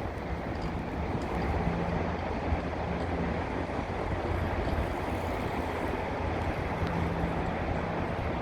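Low steady hum of a towing motor ship's engine under a continuous rush of wind and water noise.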